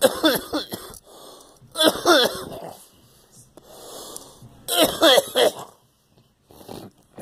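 A person coughing in three hard bouts a couple of seconds apart, each with wheezy, strained breaths, with quieter rasping breaths between them.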